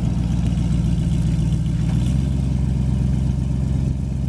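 2005 Ford F250 pickup's engine idling steadily, a low even hum.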